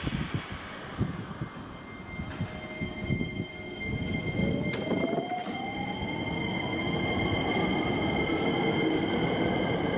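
Hankyu 9300 series electric train pulling away from the platform. A few sharp clicks come in the first few seconds. Then, from about four seconds in, the whine of its VVVF-inverter traction motors climbs steadily in pitch as it gathers speed, over a growing rumble of wheels on the rails.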